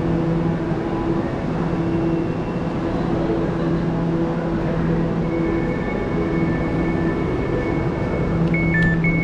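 Elizabeth line Class 345 train running, a steady rumble with a low electric motor hum. About halfway a high electronic tone sounds, and near the end it turns into alternating two-pitch beeps.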